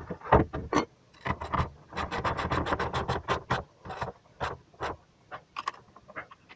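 Ratchet wrench clicking in quick runs as bolts on a car's rear engine mount are turned, with a dense stretch of about ten clicks a second in the middle.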